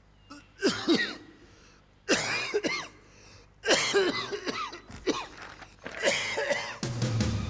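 An elderly man's harsh, wracking coughing fit: four loud bouts of coughing about a second and a half apart, each rough and strained. Background music comes in near the end.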